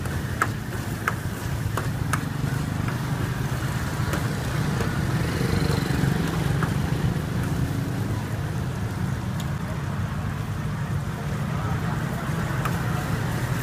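A metal ladle clinking and scraping against a wok as braised beef offal is stir-fried, with several sharp clinks in the first two seconds. Under it runs a steady low hum of street traffic.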